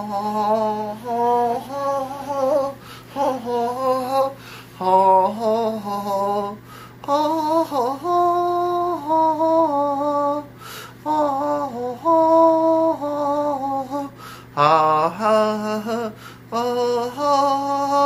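A voice singing a slow melody in phrases of held notes, over a steady low hum.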